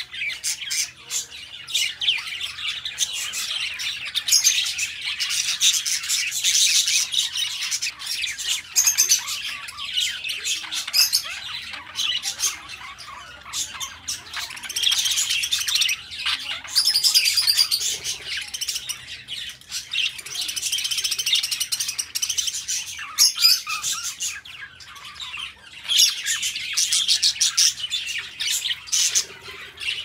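A flock of budgerigars chirping and chattering together: a continuous, busy mix of high warbling and sharper squawks, swelling louder in several spells.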